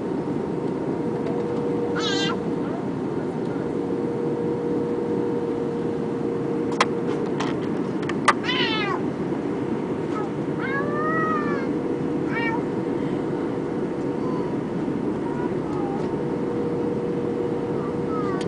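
Steady cabin noise of an Airbus A320 on approach, a low rush of engines and airflow with a constant hum. Several short high-pitched cries rise and fall through it, and two sharp clicks come about seven and eight seconds in.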